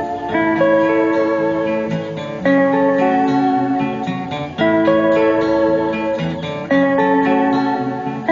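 Instrumental guitar music: sustained plucked guitar notes over held chords, with the chord changing about every two seconds.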